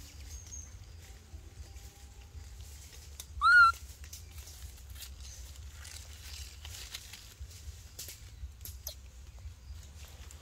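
Baby macaque giving one short, high-pitched coo about three and a half seconds in, rising and then holding its pitch, over light scrabbling and rustling of its hands in dry dirt and dead leaves.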